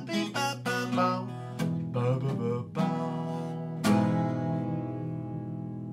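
Acoustic guitar strummed through the closing bars of the song, with the last scat "ba da ba" syllables sung over it in the first second or so. A final strummed chord about four seconds in rings out and slowly fades.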